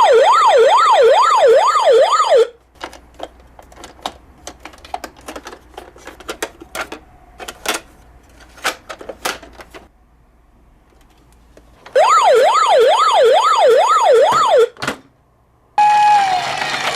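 Electronic siren from a toy emergency-vehicle minicar: a fast rising-and-falling wail of about two sweeps a second. It sounds twice for a couple of seconds each, with light plastic clicks and taps in between. Near the end a different, noisier sound with a slowly falling tone begins.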